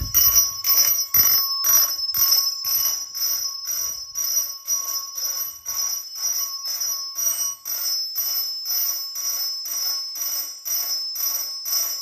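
Electric fire alarm chimes striking on march-time coding, a steady pulse of about two strokes a second, with high ringing tones held underneath the strikes.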